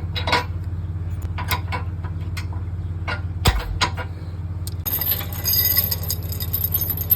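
Trailer safety chains clinking and rattling as they are handled: scattered sharp metal clinks, a heavier knock about halfway, then a denser jingle from about five seconds in. A steady low hum runs underneath.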